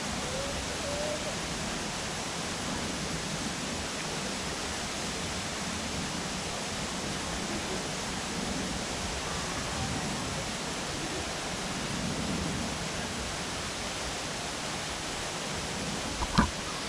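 Steady rushing of water, an even hiss from a small waterfall or stream. A couple of sharp clicks near the end.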